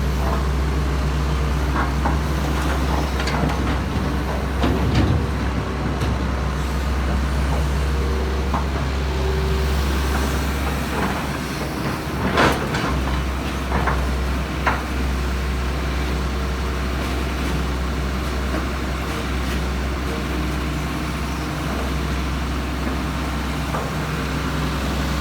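Hitachi Zaxis 220LC excavator's diesel engine running steadily, with a few sharp clanks, the loudest about halfway through.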